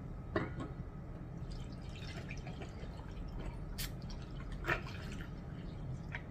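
Liquid poured from a shaker bottle into a glass mug packed with ice cubes, trickling and splashing over the ice, with a few sharp clicks along the way.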